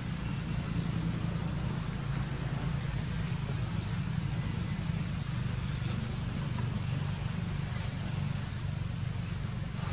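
Steady low motor hum, unbroken throughout, with a few faint short high chirps over it.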